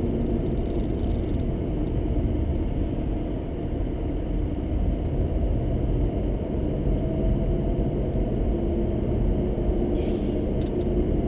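Steady road and engine noise inside a car's cabin at highway speed, a low, even rumble.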